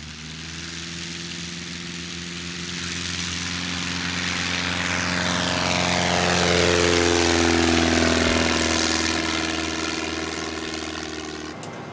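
RANS S7 Courier light aircraft's engine and propeller at takeoff power, running steadily as it takes off and climbs past, growing louder to a peak about seven to eight seconds in and then fading as it flies away.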